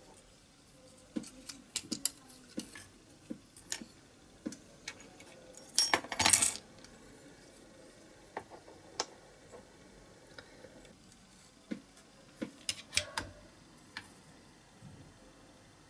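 Small metal and plastic toy-car parts clicking, tapping and scraping as a diecast model is taken apart with a screwdriver, with a louder burst of metallic rattling about six seconds in.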